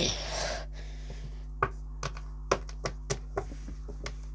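Fingers tapping on a hard surface in an irregular series of about ten light taps, a tapped 'rock language' code. A short rustle comes at the very start.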